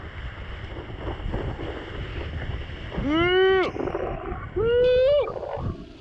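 Wind on the microphone and water spraying under a cable-towed wakeboard, with two loud, high yells from a person about three and five seconds in, each rising quickly in pitch and then held.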